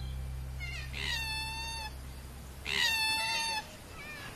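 Koala giving two high-pitched, wailing calls, each about a second long, swooping down at the start and then held. The first comes about a second in and the second just before three seconds.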